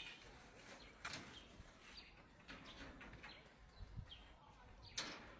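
Faint bird chirps over quiet outdoor background, with a low thump about four seconds in.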